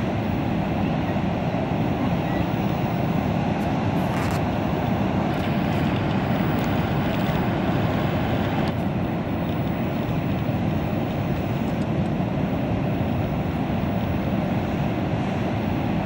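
Steady roar of heavy ocean surf breaking: an even rushing noise with no pauses.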